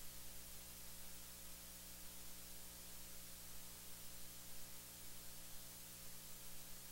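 Steady hiss with a low electrical hum: the recording's noise floor, with no sermon speech audible.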